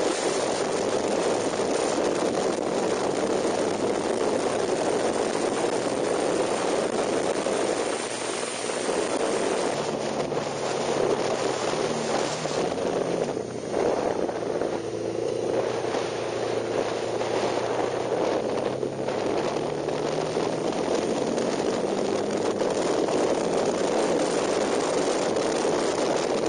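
KTM 990 Super Duke's V-twin engine running at speed, heard from a handlebar-mounted camera under heavy wind rush. The engine note comes through more clearly for several seconds in the middle, with a brief drop in loudness there.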